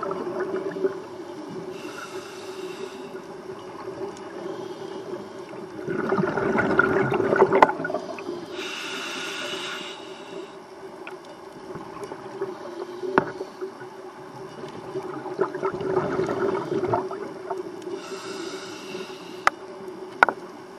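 Scuba diver breathing through a regulator underwater: a short hiss as air is drawn in alternates with a longer, louder rush of exhaled bubbles, in a cycle of about eight seconds. A steady hum runs beneath, and a few sharp clicks come near the end.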